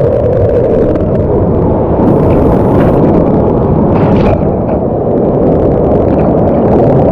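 River in spate rushing down a rocky chute, a loud, deep, steady rush of water heard right at the waterline, with water splashing over the camera. The river is in flood after days of rain.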